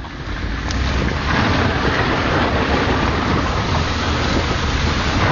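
Car driving hard on a loose gravel and mud track, heard from its open boot: tyre and road noise that builds over the first second and then holds, with a low engine rumble and wind buffeting the microphone.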